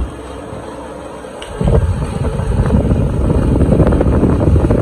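Loud crackling, rumbling handling noise from fingers rubbing on and near the recording phone's microphone. It starts about two seconds in, after a quieter steady hiss.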